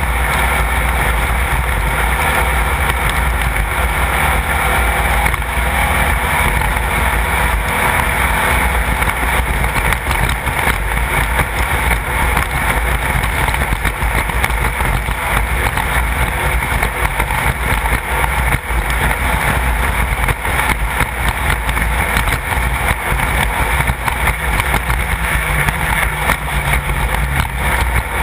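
Class 1600 off-road race car's air-cooled VW 1600 flat-four engine running steadily and loudly at speed, with many small knocks and rattles over rough ground.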